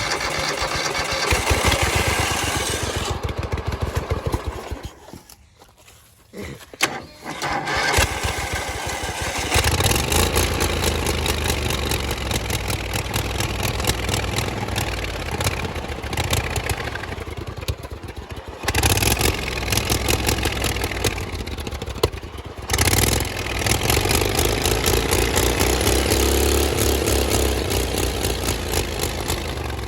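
Turbocharged V-twin lawnmower engine running, then dying away about four seconds in. After a short quiet spell and a couple of brief bursts it starts again and runs from about ten seconds in, its pitch and level changing several times.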